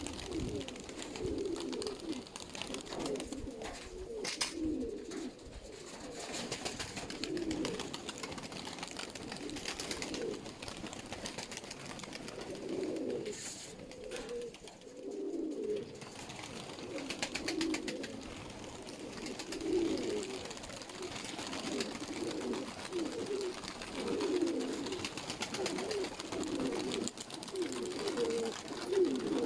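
Several sickle-winged domestic pigeons cooing continuously, their low calls overlapping one another, with a couple of faint taps.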